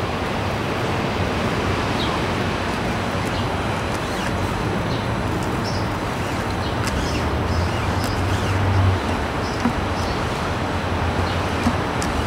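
Steady outdoor background of road traffic, a rumble and hiss, with a low hum growing louder about eight seconds in and a few faint bird chirps.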